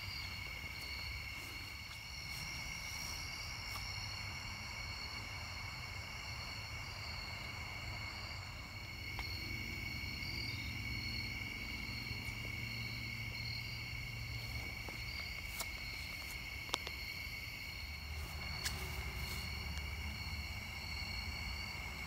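A steady chorus of crickets and other night insects, several continuous trilling tones at different pitches. A few sharp clicks sound in the second half over a low rumble.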